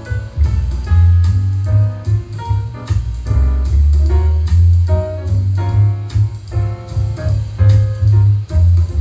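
Instrumental music played back through Edifier 1280 speakers for a sound test: piano notes over a heavy bass line and a drum kit.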